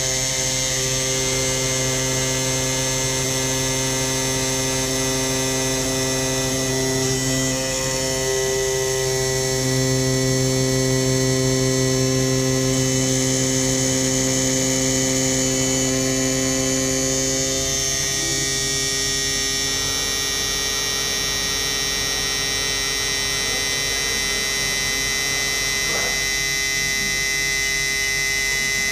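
PCB milling machine's spindle running with a steady electric hum and whine as the end mill cuts a copper circuit board, the tone shifting about a third of the way in and again past halfway.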